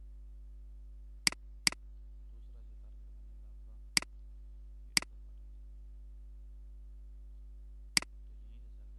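Five sharp computer mouse clicks over a steady low electrical hum: a quick pair about a second in, two more a second apart near the middle, and one near the end.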